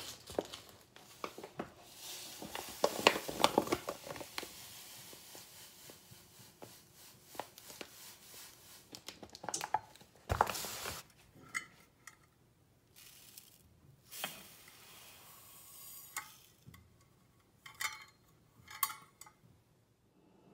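Kitchen prep sounds: granulated sugar poured from a stainless steel measuring cup into a mixing bowl, with the paper sugar bag rustling. A knock about halfway through, and a few short ringing clinks of metal on the bowl near the end.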